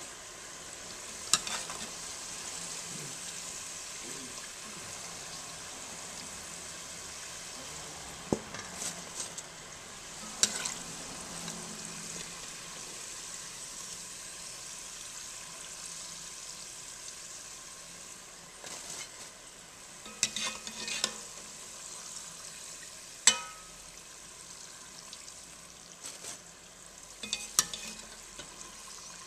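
Crinkle-cut fries deep-frying in hot oil, a steady sizzle, with several sharp clinks of a metal slotted skimmer scattered through it.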